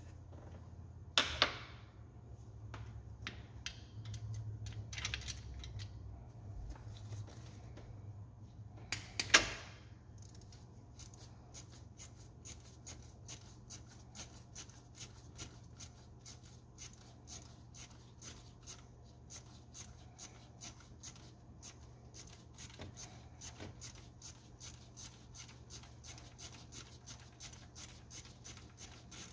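Small metal hand tools working on an engine: a couple of sharp metallic clacks in the first ten seconds, then a long run of light, evenly spaced clicks, about three a second, over a low steady hum.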